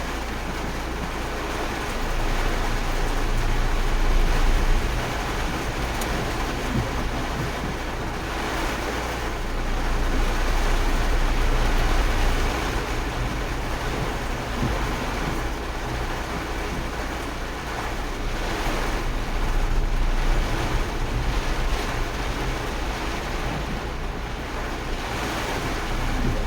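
Flooding weather: a steady rushing of water and rain, with wind rumbling on the microphone. The noise swells and eases every several seconds.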